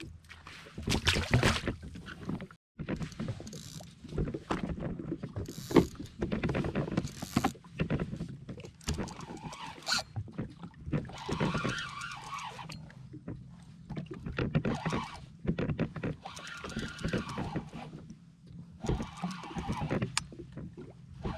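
Irregular knocks, clicks and rubbing from handling a fishing rod and spinning reel on a small craft, with stretches of the reel being wound as a fish pulls the rod over.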